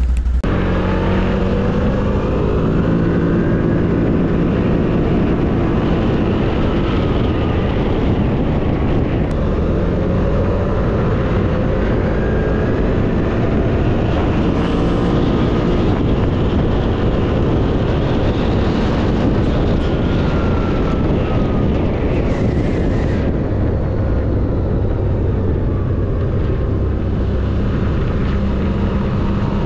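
CFMOTO G3 1000's engine running under way, its pitch rising and falling as the speed changes, over a steady rush of wind and tyre noise.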